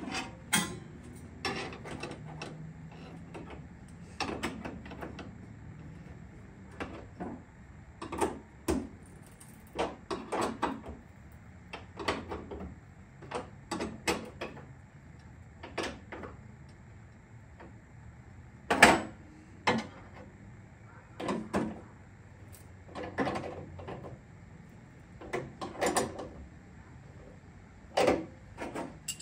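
Scattered metal knocks and clinks of hand tools and bolt hardware being handled and fitted into a Jeep's rear floor, coming irregularly every second or so, with one louder knock about two-thirds of the way through.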